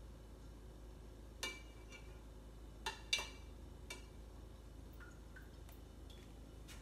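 A spoon clinking lightly against a glass jar of coconut milk yogurt as it is stirred: about four short ringing clinks, two of them close together near the middle.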